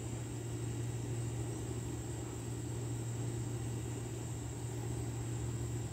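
Steady outdoor background: a constant low hum under a continuous high-pitched insect drone, with no change through the stretch.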